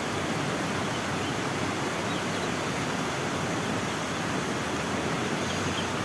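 Steady rushing of flowing stream water, an even hiss with no breaks.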